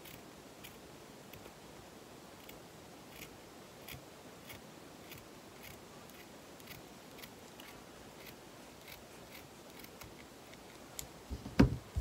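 Small scissors snipping through folded white fabric, with quiet, even snips about two a second. Near the end come a few louder thumps as the fabric is handled on the table.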